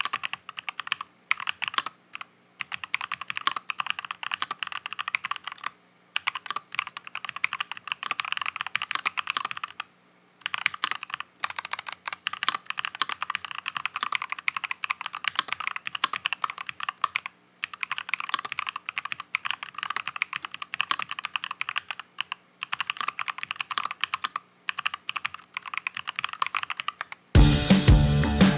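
Mechanical keyboard with stock, unlubricated Faker Holy Panda tactile switches being typed on quickly: dense key clacks in runs broken by brief pauses. About 27 seconds in, loud music cuts in.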